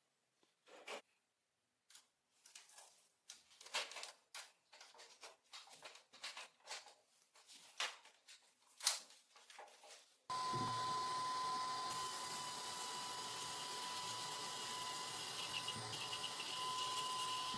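Irregular clicks and scrapes of parts being handled, then about ten seconds in an electric power tool starts suddenly and runs steadily with a constant whine.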